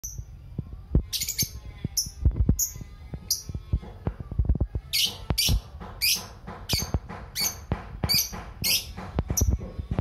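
Lovebird chattering in its 'ngekek' song: a string of short, sharp, high-pitched calls, spaced out at first and coming about twice a second over the second half. Low knocks sound underneath.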